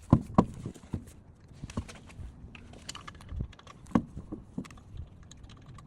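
Irregular clicks and knocks of a car wheel and lug nuts being handled and fitted onto the hub by hand.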